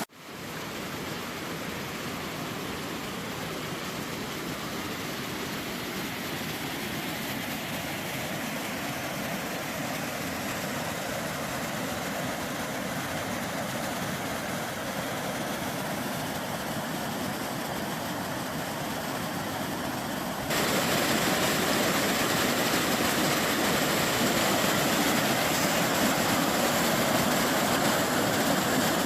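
Steady rush of falling water from a waterfall, jumping suddenly louder about twenty seconds in.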